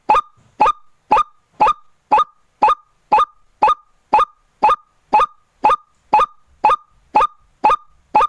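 White-breasted waterhen (ruak-ruak) calling: short, identical calls repeated evenly about twice a second. This is the kind of lure call played to draw the bird in.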